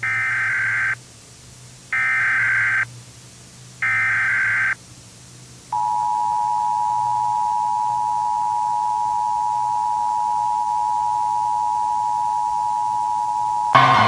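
Emergency Alert System tones. First come three one-second bursts of the SAME digital header's screechy data tones, about two seconds apart. Then the steady two-tone EAS attention signal (853 and 960 Hz) holds for about eight seconds. Near the end a louder sound abruptly cuts in over it.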